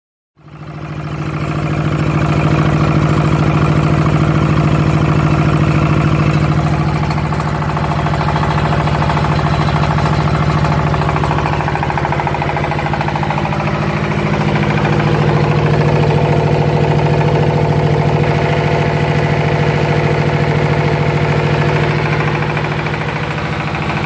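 Yamakoyo ZS1100 16 hp single-cylinder diesel engine running steadily, with an even, rapid firing beat.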